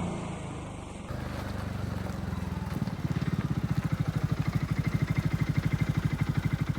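Segway Snarler 600 ATV's single-cylinder engine dropping back from a rev during the first second, then idling with an even pulsing beat of about ten a second.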